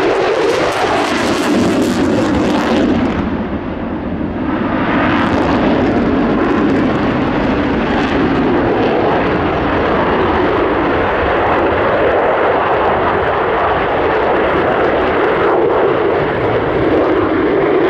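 Single-engine F-16 fighter jet, its engine noise loud and sustained, dipping briefly about four seconds in before rising again.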